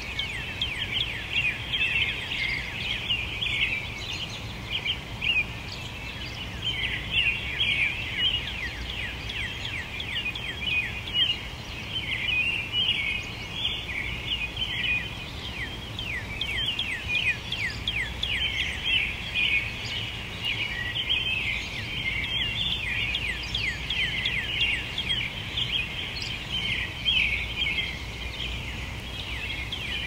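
Many songbirds chirping and singing at once in a continuous chorus of quick, high, downward-sweeping notes, over a faint steady low hum.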